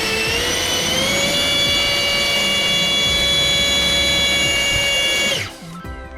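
70 mm electric ducted fan running at high power on a thrust test: a loud, steady high-pitched whine that rises a little about a second in, holds, then spools down and stops about five seconds in.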